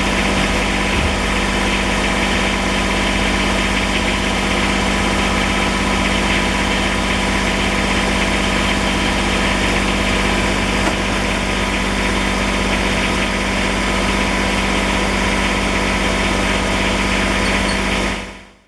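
Kubota BX23S compact tractor's three-cylinder diesel engine running at a steady speed; the sound stops near the end.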